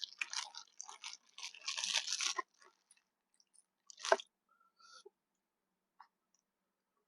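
Close-up crunchy chewing of a mouthful of food that stops about two and a half seconds in. A single sharp click or smack comes about four seconds in, followed by a few faint ticks.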